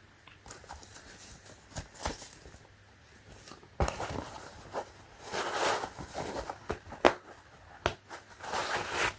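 Handling of a cotton-nylon camp cap: fabric rustling in a few stretches, with several sharp clicks and taps between them.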